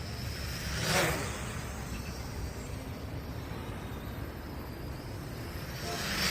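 MJX X400 quadcopter's motors and propellers buzzing in flight, with a faint wavering high whine. Twice, about a second in and near the end, it passes close with a brief louder whoosh.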